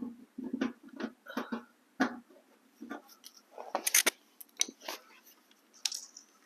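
Plastic fender-liner push clip on a Honda Civic being wiggled and pried out with a flathead screwdriver: a series of short plastic clicks and scrapes, loudest about four seconds in.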